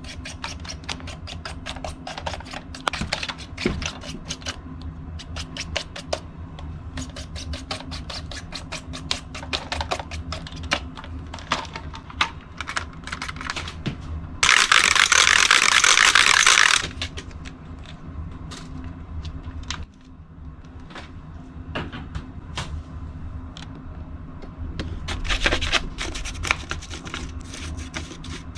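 Vacuum cleaner running with a steady motor hum and rapid clicking and rattling throughout, like grit and dust being sucked up. A loud hissing rush comes in about halfway and lasts a couple of seconds.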